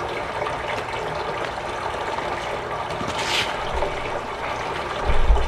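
Water running steadily into a homemade hog waterer as it fills, checked for leaks; a brief hiss about three seconds in and a low rumble near the end.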